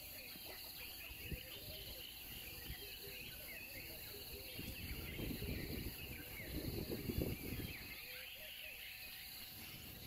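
Small birds chirping and twittering over a steady, evenly pulsing insect trill.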